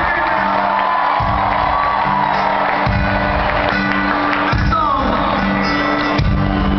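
Live band music played over a stadium sound system, heard from within the crowd, with a heavy low beat about every second and a half and audience voices singing along and whooping.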